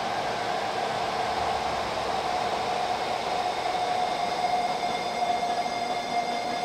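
Eurorack modular synthesizer playing a dense noise drone: a steady hiss with a sustained mid-pitched tone running through it. Fainter high tones join in about two seconds in.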